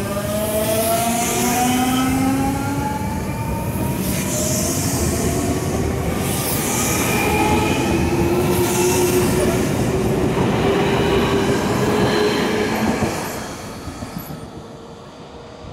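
Nankai electric commuter train pulling out of the station. Its motor drive gives a whine of several tones that rise in pitch as it gathers speed, over the noise of its wheels on the rails. The sound fades off about thirteen seconds in.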